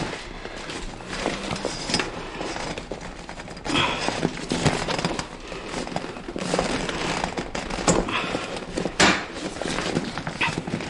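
Handling noise from inside a Garpun 4.5 hybrid kayak: the fabric skin rustling and scattered clicks and knocks of the aluminium frame parts as hands fit them into the hull.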